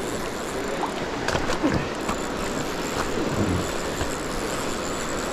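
Steady rush of flowing river water, with a few scattered knocks and splashes.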